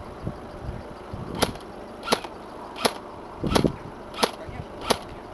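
Both Elephant Type 89 airsoft electric rifle firing six sharp, short shots at an even pace of about one every 0.7 seconds.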